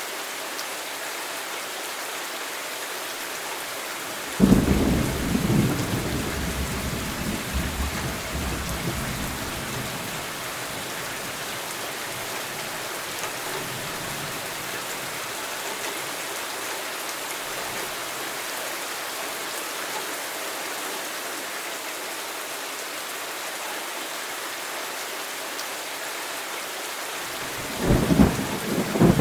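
Steady rain hissing, with a sudden thunderclap about four seconds in whose rumble fades over several seconds, and a second roll of thunder near the end.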